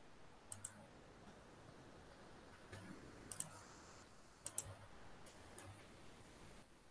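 Sharp clicks in quick pairs: three double clicks a second or more apart, then a couple of fainter single clicks, over a faint background hiss.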